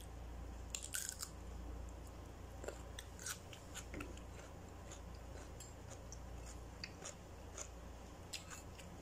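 Biting into a raw whole cucumber, then chewing it with crisp, wet crunches. The loudest crunch comes about a second in, with smaller crunches scattered after.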